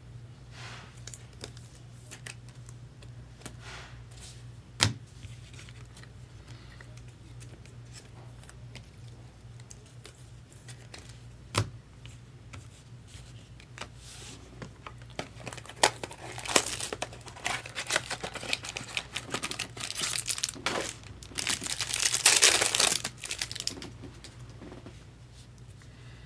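Trading card pack wrapper crinkling and tearing as it is opened, in a dense run over the second half that is loudest near the end. Two single sharp clicks come earlier, over a low steady hum.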